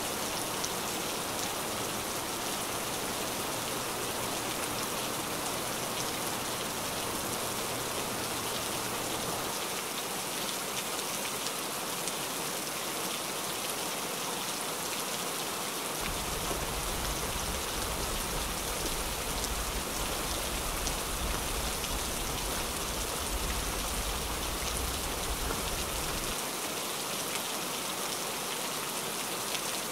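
Heavy rain falling steadily in a dense, even hiss. A low rumble underneath comes and goes, strongest for about ten seconds in the second half.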